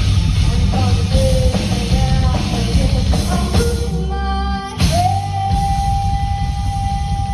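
Rock band playing live through a stage PA: drums, heavy bass, guitar and a singing voice. About two-thirds of the way in, a long steady high note is held.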